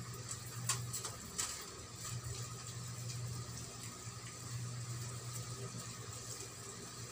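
Two light clicks about a second apart, from metal tweezers tapping against a plastic enclosure, over a steady low hum.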